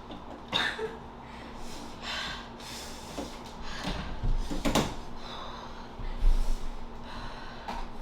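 A person sniffing and breathing hard from the burn of extremely hot chili chocolate, with a runny nose: a string of short sniffs and gasping breaths, the loudest about halfway through.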